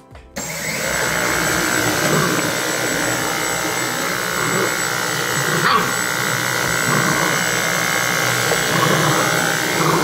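Dyson cordless stick vacuum switching on abruptly and running steadily, with a high-pitched motor whine over a even rushing of air.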